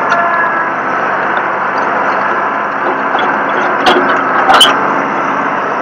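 A heavy vehicle engine running steadily, with two sharp knocks a little past the middle, the second doubled.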